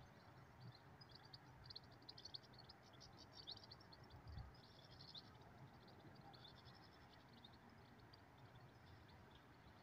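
Near silence with faint, rapid high-pitched twittering of small birds, thinning out after about six seconds.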